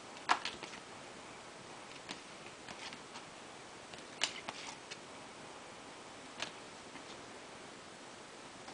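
Trading cards being flipped through by hand: light, sharp clicks and snaps of card stock, irregular and a second or two apart, over a faint steady hiss.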